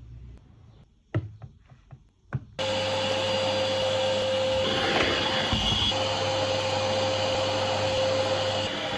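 A few clicks and knocks, then an old household vacuum cleaner switched on about two and a half seconds in. It runs steadily with a constant whine and a low hum.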